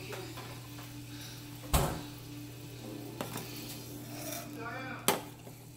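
Two sharp clanks of metal cookware at the stove, one about two seconds in and one near the end, over a steady low hum.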